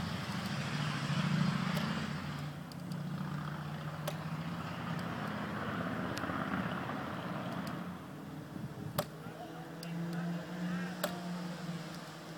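A steady low motor hum that swells and fades twice, like a passing vehicle, with a few sharp clicks scattered through it.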